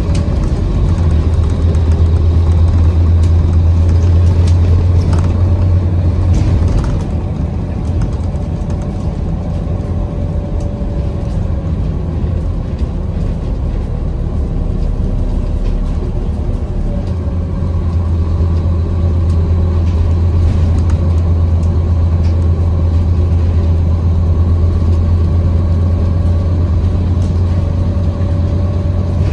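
Scania N230UD double-decker bus's five-cylinder diesel engine heard from inside the saloon on the move, a steady low drone. It is loudest for the first six seconds, eases off at about seven seconds, and builds again from about seventeen seconds as the bus pulls on.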